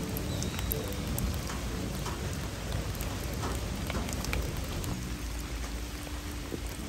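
Steady heavy rain falling on wet ground and rubber mats, with single drops striking close by as scattered sharp ticks.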